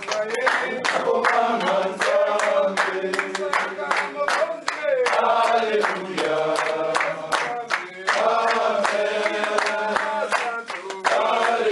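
A group of men singing and chanting together in chorus, with a steady beat of hand claps.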